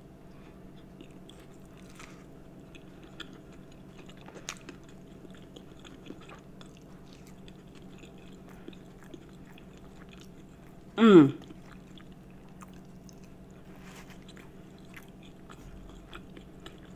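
A person chewing a bite of bacon cheeseburger pizza close to the microphone: soft, wet chewing with small clicks over a steady low hum. About eleven seconds in comes one short, loud 'mmm' of enjoyment that falls in pitch.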